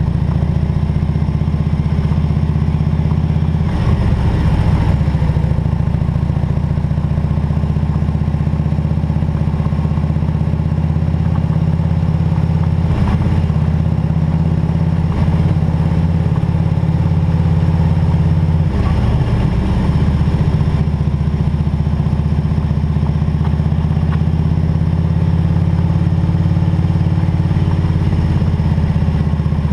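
Harley-Davidson Road King's V-twin engine running steadily, its low note briefly changing a few times.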